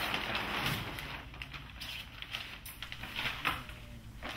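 Stiff Dacron sailcloth rustling and crinkling in irregular bursts as a sail is handled and lifted.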